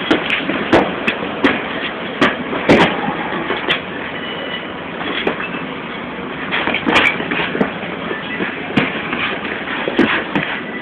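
Boxing-glove punches landing during sparring: irregular sharp smacks, a dozen or so, over a steady noisy hiss from a low-quality phone recording.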